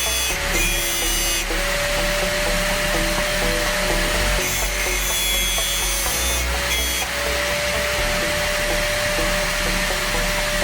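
A small electric grinding tool running with a steady whine, with two spells of hissing grinding as a drill bit is put to the abrasive: a short one near the start and a longer one of about two seconds midway. Background music plays along.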